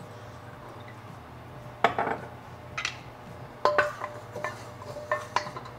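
Wooden spatula knocking and scraping against a carbon steel wok as oil is spread around it: a series of sharp taps starting about two seconds in, several with a brief metallic ring from the wok.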